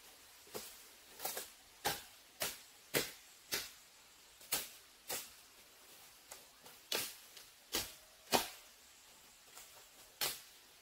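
Repeated sharp chopping strikes of a blade cutting into bamboo, about two a second, with a short pause before a last blow near the end.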